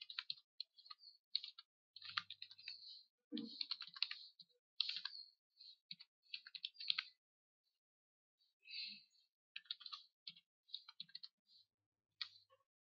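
Computer keyboard typing in short, irregular bursts of faint key clicks, with a pause of about a second past the middle.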